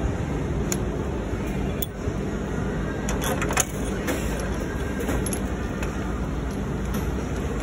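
Light metallic clinks and rattles from hand work on parts in a car's engine bay, loudest about three and a half seconds in, over a steady low rumble.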